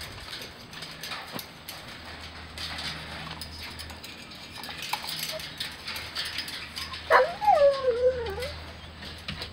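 A beagle gives one long, wavering, anxious whine about seven seconds in, over faint rustling and ticking.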